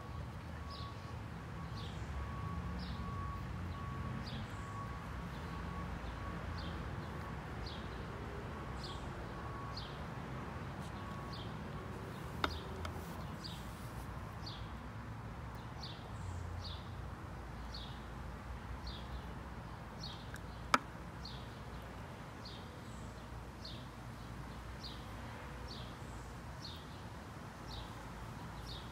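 An animal's short, high, falling chirps, repeated about one and a half times a second over a low outdoor background hum. Two sharp clicks come a little under halfway through and again about two-thirds in.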